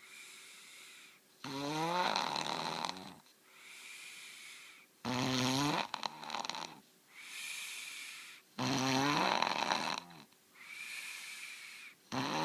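A child snoring in his sleep: a loud snore about every three and a half seconds, three in all with a fourth starting at the very end, and a quieter breath between each.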